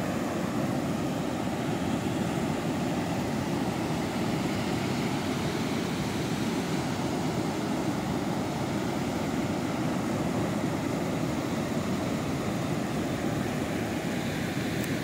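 Ocean surf breaking on a beach, a steady wash of noise with no pauses.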